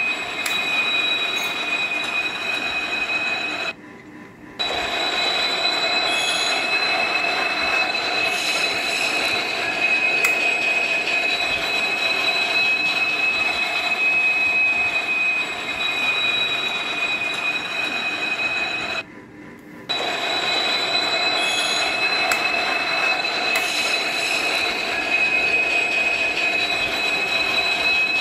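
Miniature toy train running on its plastic track, giving a steady high whine over a rumbling noise. The same sound pattern repeats about every fifteen seconds, dipping out briefly twice, like a looped train sound effect.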